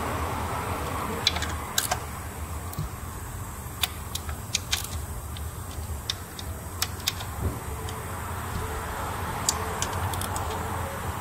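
Irregular sharp clicks and light metallic clinks of a hand ratchet with a socket extension being worked on the engine's spark plugs and coil area, over a steady low hum.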